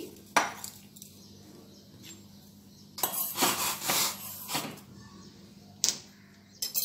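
A steel spoon stirring milk in a stainless steel pot, clinking and scraping against the metal in a cluster of strokes about three to four and a half seconds in, with single clinks near the start and end.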